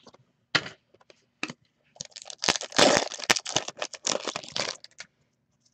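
Hands handling trading cards and their packaging: a few light clicks, then a dense run of crackling and clicking from about two seconds in that lasts about three seconds.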